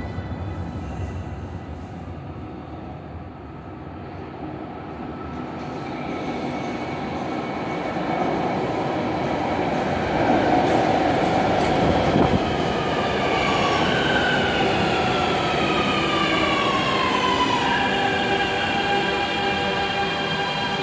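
Qingdao Metro Line 3 train arriving at the station: a rumble grows over several seconds, then the train's whine falls in pitch as it brakes, settling to a steady hum as it comes to a stop.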